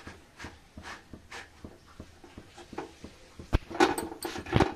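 Soft repeated dabs of a folded cloth pressing a makki ki roti (cornmeal flatbread) against a hot iron tava, about three a second, as it is cooked through. Near the end come a sharp click and a few louder knocks as the roti is handled and turned on the tava.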